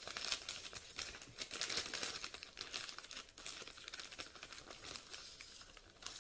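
Plastic mailer bag crinkling and rustling irregularly as hands dig inside it.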